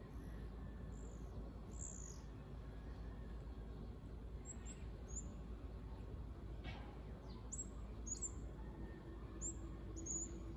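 Guaiabero, a small Philippine parrot, giving short, very high-pitched squeaky call notes that drop in pitch, scattered singly and in quick runs of two or three, about a dozen in all.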